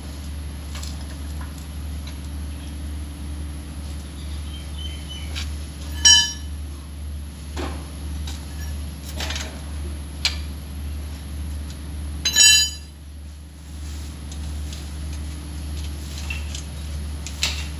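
Metal tools clinking on metal, with scattered small clicks and two loud ringing clinks about six and twelve seconds in, over a steady low hum.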